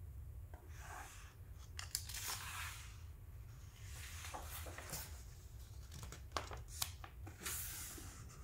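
Pages of a paperback picture book being handled and turned by hand: soft rustles and swishes of paper coming and going, with a few sharp page flicks.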